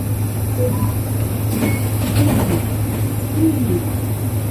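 Inside a 2005 Isuzu Erga KL-LV834 low-floor city bus, its diesel engine idling with a steady low hum while the bus waits at a stop.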